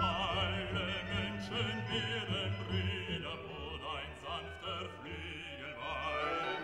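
Background music: a classical-style piece with a voice singing with wide vibrato.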